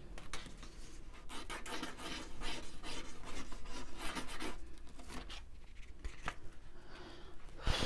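A wooden skewer scratching and rubbing across a sheet of paper in quick, irregular strokes, with a louder burst of noise right at the end.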